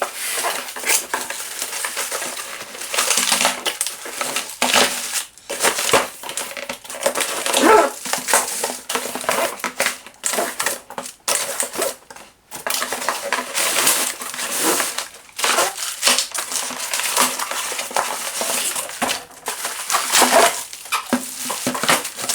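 A cardboard box being opened and unpacked by hand: irregular rustling, scraping and crinkling of packaging, with light knocks of plastic parts.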